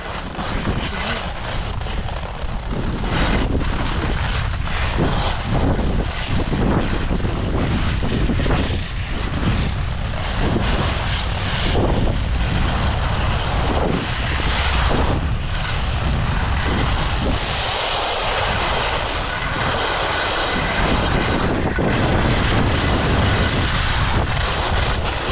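Skis side-slipping down a race course, the edges scraping steadily over the snow with a hiss that swells and fades, over heavy wind rumble on the microphone.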